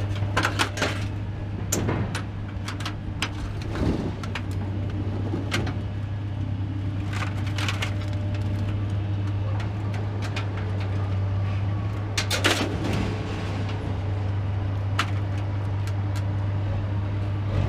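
A steady low hum, like a vehicle running, with scattered clicks and knocks over it.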